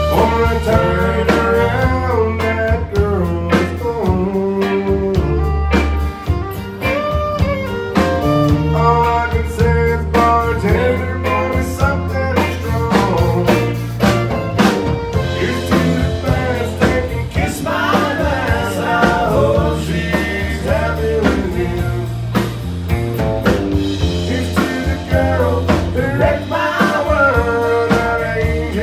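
Live country band playing a song: fiddle, acoustic and electric guitars and bass over a steady beat, with singing.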